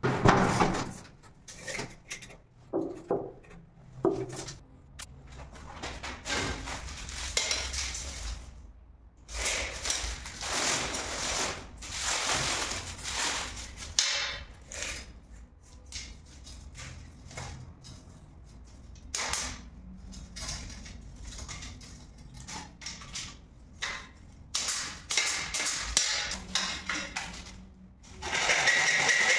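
Irregular knocks, clinks and scraping from tiling tools and a metal strip being handled, with a louder, steadier stretch of rasping noise near the end.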